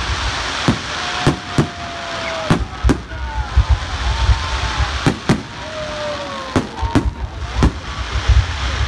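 Aerial fireworks bursting: about a dozen sharp bangs at irregular intervals, some in quick pairs, over the murmur of a large crowd.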